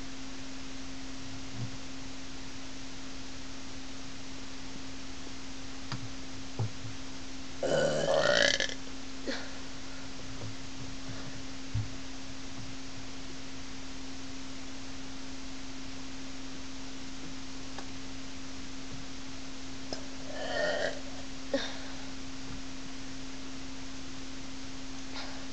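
A person burping: one loud burp lasting about a second around eight seconds in, and a shorter, softer one around twenty seconds in, with a few faint clicks between. A steady low hum runs underneath.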